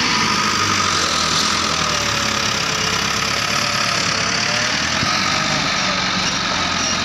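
Massey Ferguson 375 tractor's four-cylinder diesel engine running steadily, heard close by.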